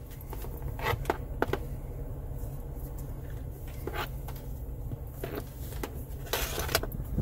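Cables and wiring connectors being handled and tucked into the opened dashboard: scattered clicks and rubs, with a longer rustle near the end. Under it, a low steady hum from the Jeep Wrangler's engine idling.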